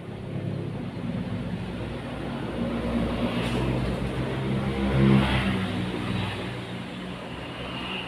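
A motor vehicle's engine running nearby, growing louder to a peak about five seconds in and then fading, as when a vehicle passes by.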